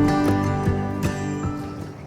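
Background music led by a plucked acoustic guitar, fading out toward the end.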